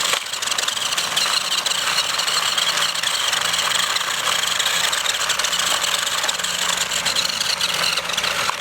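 Small electric drive motor and plastic gears of a toy remote-control car whirring steadily as it drives, with a fine rapid rattle of the wheels on the ground.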